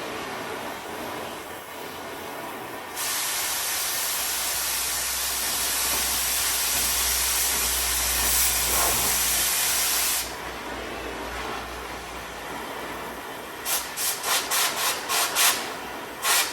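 Oxy-fuel cutting torch cutting a truck's steel frame. A steady flame hiss gives way about three seconds in to the loud hiss of the cutting-oxygen jet, which lasts about seven seconds before falling back to the flame hiss. Near the end it comes in short, quick blasts as the oxygen is feathered to blow out the molten steel a little at a time.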